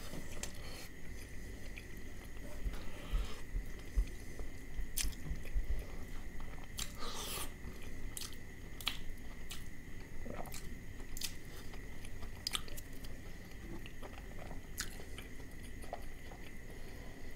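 Close-miked eating sounds of a man chewing rice and mutton liver curry by hand: wet chewing and lip smacks with scattered clicks. Near the end he sips from a soda can. A faint steady high tone runs underneath.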